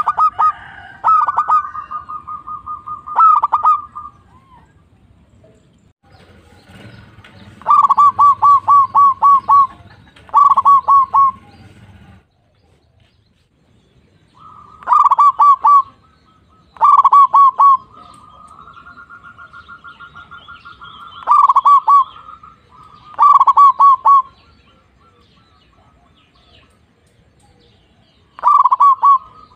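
Zebra dove (perkutut) song: loud series of rapid, evenly repeated coos, each series a second or two long, separated by quiet gaps of a few seconds. In the middle a softer, even rolling trill runs for about three seconds before the staccato coos return.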